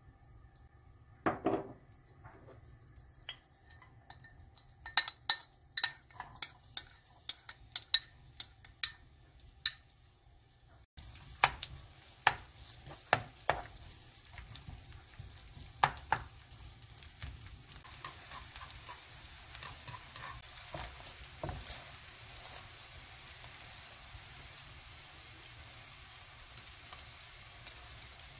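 Light clinks and taps of utensils on a nonstick pan. About eleven seconds in, steady sizzling starts suddenly as sliced garlic fries in hot grapeseed oil, with a wooden spatula knocking and scraping the pan as it is stir-fried.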